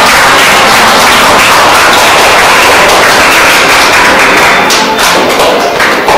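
Loud music playing steadily.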